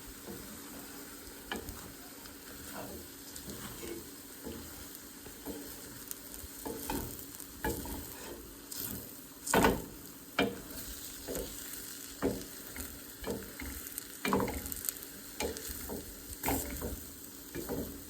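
Food sizzling in a hot frying pan while a utensil stirs it, with irregular scraping strokes against the pan about once a second, the loudest about halfway through.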